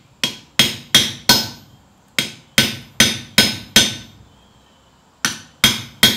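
Hammer blows on a hand punch driving a hole through the flattened corner of a forged steel dinner bell, held over the anvil's round hole. Three runs of sharp strikes, about three a second, each blow ringing briefly.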